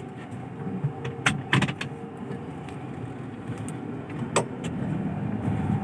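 Perodua Myvi heard from inside the cabin as it pulls away on a test drive, with engine and road noise slowly getting louder and a few sharp clicks. No 'tuk-tuk' knock comes from the front suspension, now fitted with Alza shock absorber mountings.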